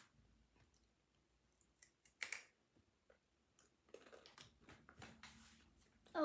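Faint chewing and mouth clicks of someone eating a piece of candy: a few scattered soft clicks, the loudest about two seconds in.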